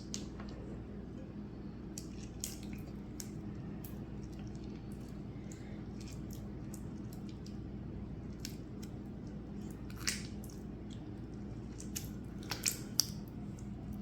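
Hands kneading and squeezing sticky, partly activated glue-and-borax slime: scattered small wet squelches and clicks, a few louder ones near the end.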